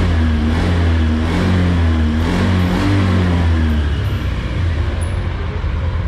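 Fuel-injected Honda scooter's single-cylinder engine idling, its pitch wavering up and down a little for the first few seconds and then settling steady. The idle is being adjusted up from about 1,300–1,400 rpm toward 1,500 rpm because the low idle makes the engine stall in the morning.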